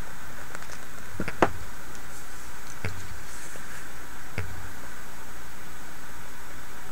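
Pages of a thick glossy paper catalog being handled and turned: a few short clicks and taps, the sharpest about a second and a half in, over a steady background hiss.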